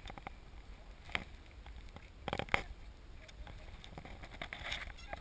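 Handling noise from a stopped, mud-covered downhill mountain bike: a few small clicks and knocks about a second and two and a half seconds in, with faint rustling between them.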